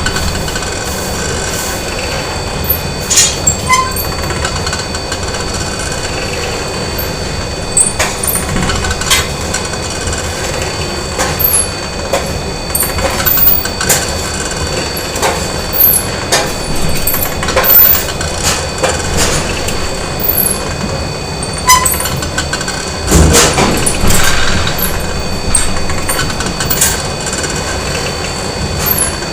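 Factory machinery ambience: steady machine noise with several constant high whines, broken by irregular metallic clanks and knocks. There is a louder clatter about 23 seconds in.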